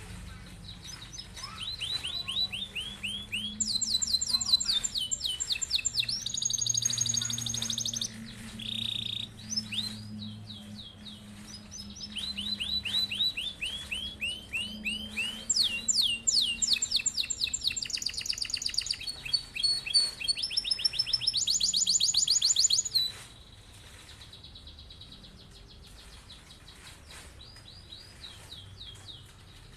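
Domestic canary singing long rolling trills, fast runs of repeated notes changing from phrase to phrase. There are two long bouts of song; the second breaks off suddenly about three quarters of the way through, leaving only faint scattered notes.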